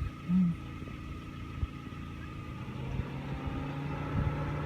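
Car engine running at idle, heard from inside the car, a steady low hum whose pitch steps up about three seconds in. A short low-pitched sound about half a second in is the loudest moment.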